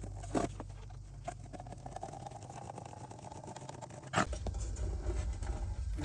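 Faint clicks, taps and light handling noises, with two sharper knocks, one about half a second in and one about four seconds in, as the tail of background music fades away.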